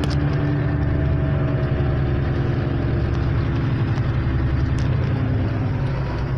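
Steady low drone inside a moving 1998 Acura Integra, with a hum from the rear wheel bearings, which are worn out.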